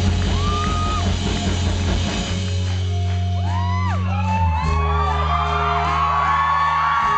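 Live rock band playing sustained low chords that change every couple of seconds, with a man singing. From about three seconds in, audience members scream and whoop over the music.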